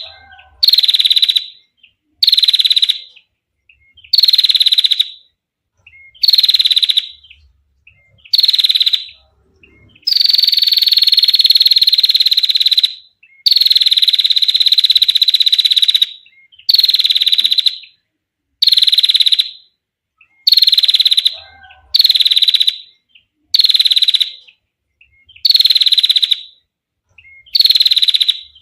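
A female prinia (prenjak) giving its 'ngetir' call: a clear, buzzy, high trill repeated about every one and a half to two seconds, each trill starting slightly higher and settling, with two much longer trills in the middle.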